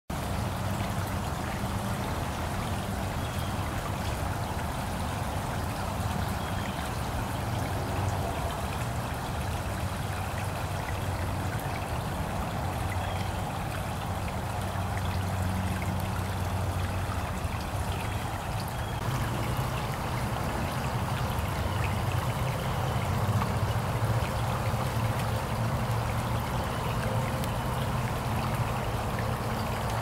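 Steady sound of running water, like a small stream trickling, unchanging throughout, with a few faint high chirps now and then.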